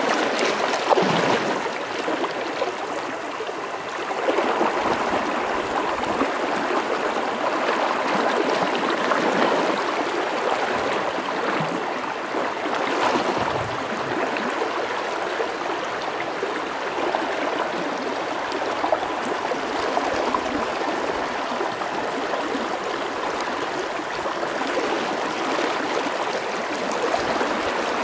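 Fast, shallow river rushing steadily over a rocky riffle, a continuous wash of moving water.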